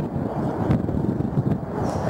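Strong wind buffeting the microphone: a loud, rough noise, mostly low in pitch, that wavers with the gusts.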